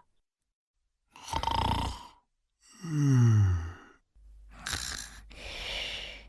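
Cartoon snoring sound effects: a breathy snore, then a deep snore that falls in pitch, then more wheezy snoring breaths.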